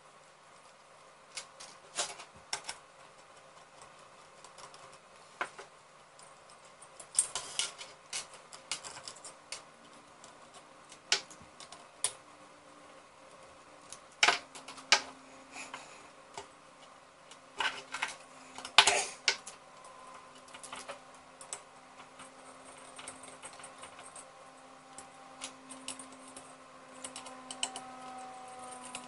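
Irregular clicks and taps of small metal screws, clips and a screwdriver being handled and set down on a wooden bench while a graphics card heatsink is taken apart. A faint steady hum comes in about halfway through.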